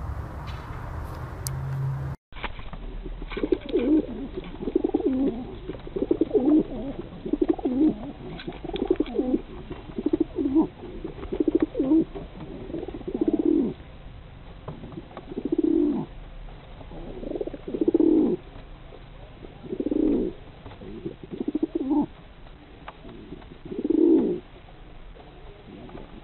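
English fantail pigeons display cooing: a run of low coos, each about a second long, repeated every one to two seconds. It follows a short stretch of other noise that cuts off abruptly about two seconds in.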